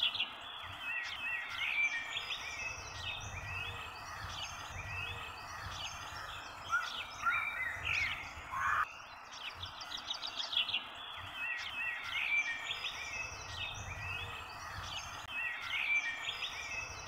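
Several birds chirping and trilling over a steady outdoor background hiss.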